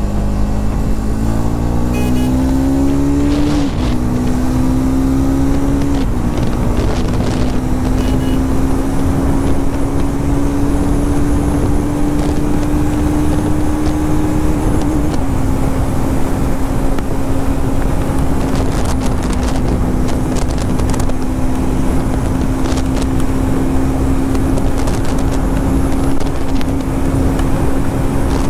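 Triumph Speed 400's single-cylinder engine accelerating under way. Its pitch climbs and drops twice in the first six seconds as it shifts up through the gears, then holds nearly steady at cruising speed.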